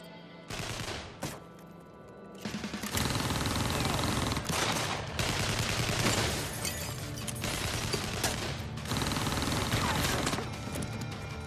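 Rapid film-soundtrack gunfire: a dense volley of many shots that starts about three seconds in and runs on without a break, with music underneath.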